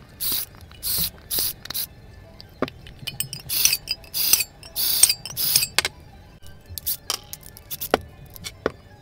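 Cordless drill with a step bit boring holes in the side of a tuna can in short bursts, about eight of them, each well under half a second, with the bit cutting into the thin can wall. A few sharp metallic clicks follow near the end.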